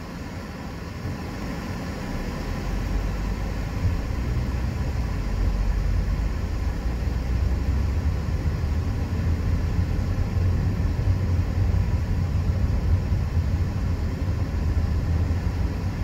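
Mazda CX-30 accelerating from a crawl up to about 40 mph, heard from inside the cabin: a low engine and road rumble that grows louder over the first several seconds, then holds steady.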